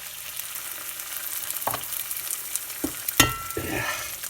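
Lobster mushrooms frying in avocado oil and butter, a steady sizzle. A few sharp knocks on the pan, the loudest a ringing metallic clink about three seconds in.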